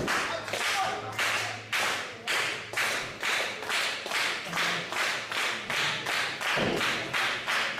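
Small crowd clapping in unison, a steady beat of about two and a half claps a second, with a dull thud about six and a half seconds in.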